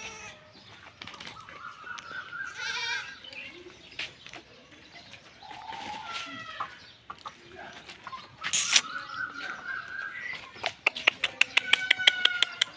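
Farmyard animals calling: several high-pitched calls, each about a second long, and near the end a fast run of short clicking calls.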